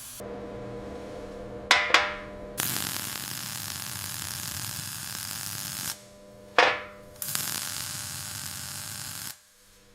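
Welding arc sizzling in two runs of about three and two seconds, with sharp metallic clangs that ring briefly, twice near the start and once between the runs.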